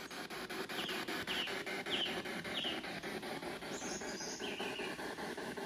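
Bird chirping: four short chirps about half a second apart, then two longer calls, the first higher, over a steady background hiss.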